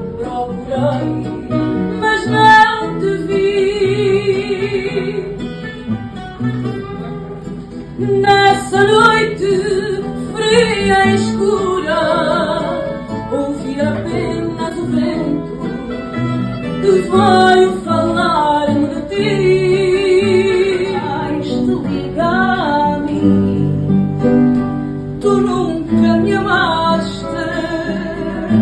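Fado: plucked guitars accompanying a singer, whose held notes waver in a wide vibrato several times.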